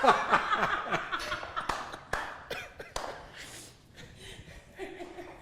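People chuckling and laughing softly, dying away over the first few seconds, with a few sharp taps.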